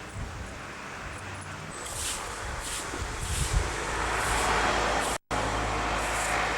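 Road traffic: a motor vehicle's noise swells as it approaches, loudest about four to five seconds in, with faint regular ticks about every two-thirds of a second over it. The sound drops out completely for an instant just after five seconds, a tape dropout.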